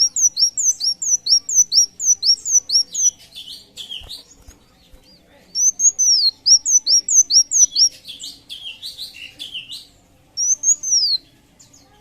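A sunbird singing: fast runs of high, sharp down-slurred notes, about four a second, each run trailing off into a scratchy twitter, repeated three times with short pauses between.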